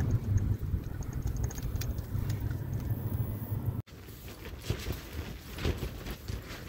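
A vehicle's engine running steadily while driving, a low rumble that cuts off abruptly a little under four seconds in. It is followed by quieter scattered clicks and rustling from something handled close by.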